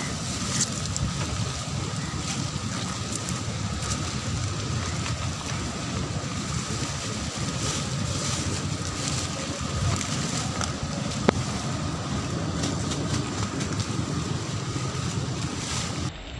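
Wind buffeting the phone's microphone: a steady rushing noise.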